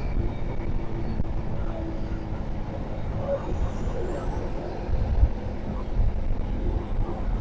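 Road traffic passing: a steady low rumble of vehicles, swelling briefly about five seconds in.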